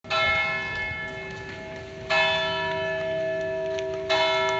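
A large bell tolling noon: struck three times about two seconds apart, each stroke ringing on in many steady tones that slowly die away.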